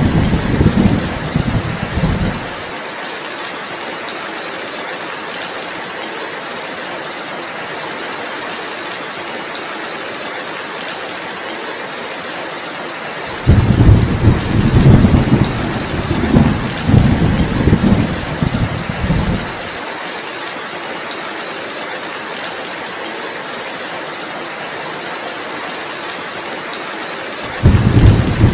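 Heavy, steady rain, with rolling rumbles of thunder that come in three spells: at the start, for about six seconds in the middle, and again near the end. The rumbles start and stop suddenly while the rain runs on unchanged.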